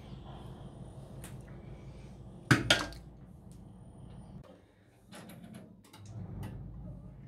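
Tabletop handling noises: two sharp knocks in quick succession about two and a half seconds in, then a quick run of lighter clicks about five seconds in. A steady low hum runs underneath.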